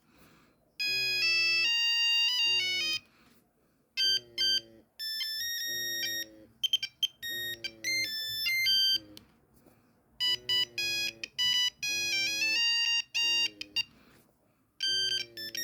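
Nokia 3310 playing a monophonic ringtone melody through its small speaker: phrases of short, bright electronic beeping notes separated by brief pauses.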